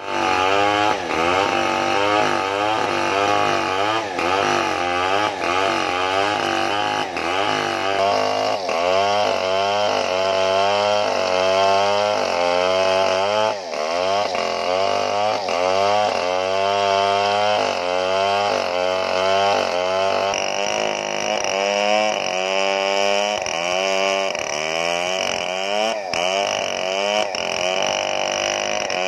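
Two-stroke chainsaw running at full throttle under load, cutting lengthwise through a large log. Its pitch wavers up and down about once a second as the chain bogs in the cut and picks up again.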